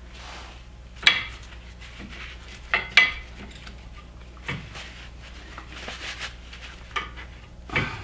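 Steel brake pads and their spring clips clinking against the caliper bracket and each other as they are handled, a handful of separate sharp metallic clinks over a faint low hum.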